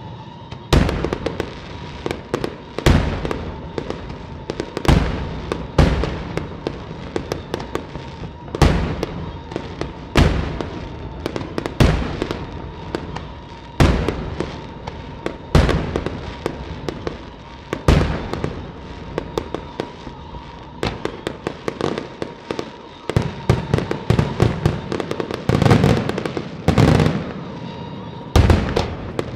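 Daytime fireworks display: loud shell bursts bang about every one to two seconds, with rapid crackling from firecracker strings between them. The bangs come faster and closer together near the end.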